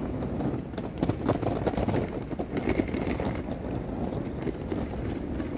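Street traffic going past, with footsteps and rubbing and knocking from a camera carried by hand while walking.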